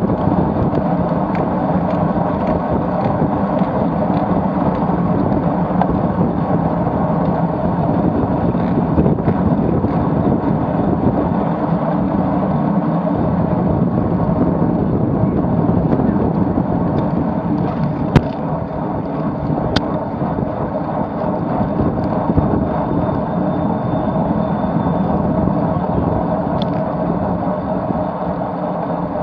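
Steady wind rush over the microphone of a camera mounted on a road bike, riding at about 30–35 km/h, mixed with tyre noise on the road. Two sharp clicks come a little past halfway, about a second and a half apart.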